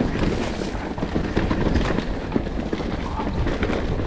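Enduro dirt bike on a rough trail: a steady rumble with many quick knocks and rattles as the bike jolts over the ground.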